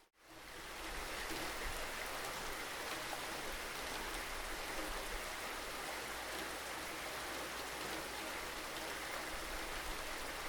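Steady rain, a continuous even hiss with a low rumble underneath. Right at the start the sound drops out briefly and fades back in within about a second.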